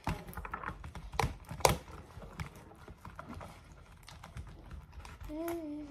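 Slime being stirred and worked in a plastic tub: a spoon clacks sharply against the tub a few times in the first two seconds, with lighter taps and clicks after. Near the end a child starts singing a held note.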